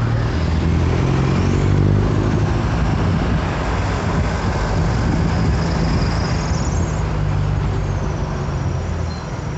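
Mercedes-Benz OF-1721 Euro 5 bus's diesel engine running steadily, heard at the exhaust with a low, even note.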